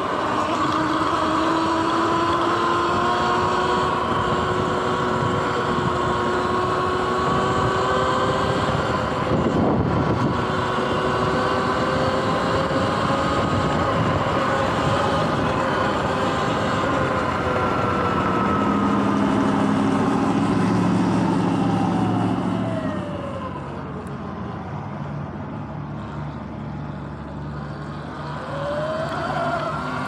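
Sur-Ron X electric dirt bike at riding speed: a whine from its electric motor and drivetrain over wind and tyre noise. The whine falls as the bike slows a little past two-thirds of the way through, and rises again as it speeds up near the end.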